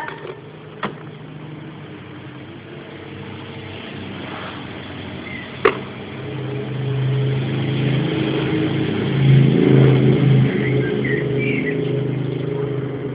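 Motor engine running steadily, growing louder over a few seconds past the middle and staying loud, with one sharp click just before the middle.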